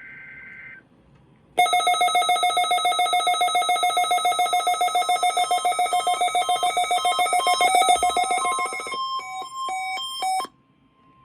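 Several weather radios sounding their alert alarms together on receiving the weekly test: a loud, rapidly pulsing electronic beeping that thins to separate beeps and cuts off about ten seconds in. Before the alarms start, the high warbling data burst of the broadcast's digital alert header ends, and a single steady tone carries on briefly after the alarms stop.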